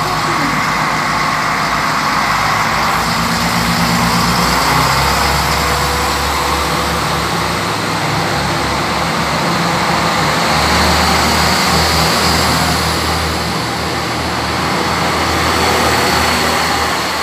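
SNCF X 73500 diesel railcars pulling out of the station and passing close by, their diesel engines running under load throughout.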